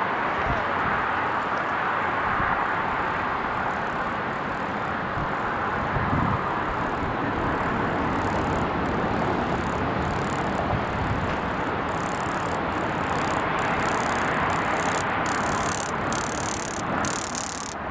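Narrow-gauge 2-6-2 steam locomotive running with its train: a steady rush of mechanical noise. Through the second half, evenly spaced hissing beats come in and grow more regular toward the end.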